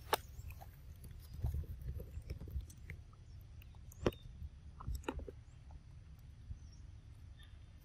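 Monkeys biting and chewing soft fruit, heard as scattered small clicks and crackles, the sharpest just at the start and about four seconds in, over a low rumble.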